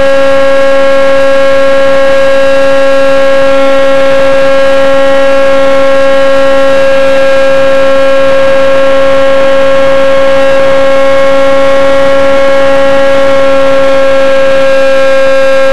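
Slow Flyer 1400 model plane's motor and propeller running steadily under power, heard from on board as a loud, constant high-pitched whine with a clear drone underneath.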